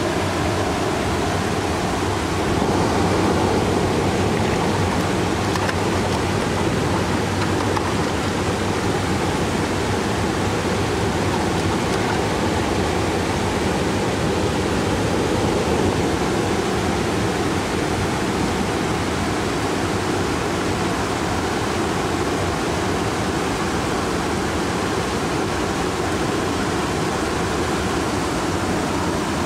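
Steady rushing of river water pouring over a low weir.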